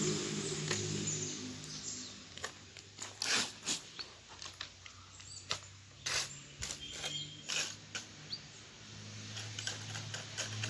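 Scattered sharp knocks and scrapes of masonry work, as stones and cement are worked into a fire-pit hole. Faint bird chirps come through, and a low steady hum fades out early and comes back in the second half.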